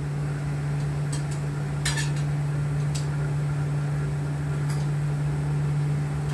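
Metal kitchen utensils and cookware clinking a handful of times, the loudest clink about two seconds in, over a steady low hum.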